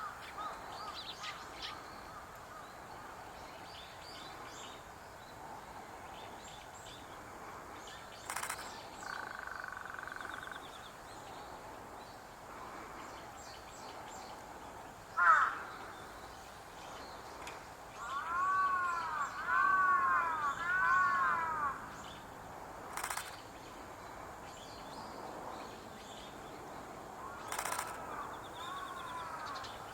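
Outdoor birds calling over quiet background noise. The loudest is a run of about six harsh, arching calls in quick succession just past the middle, with a weaker run near the end. There are also a single sharp call and a few scattered sharp clicks.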